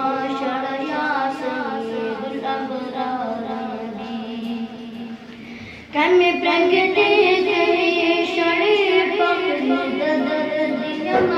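A boy singing a naat unaccompanied, in long, wavering held notes. About five seconds in he breaks off briefly, then comes back louder and higher.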